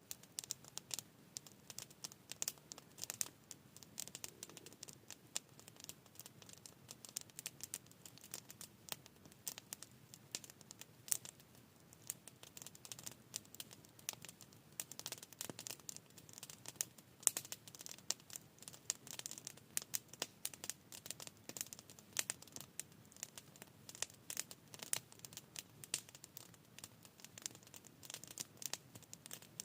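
Campfire crackling, with many small irregular pops and snaps throughout.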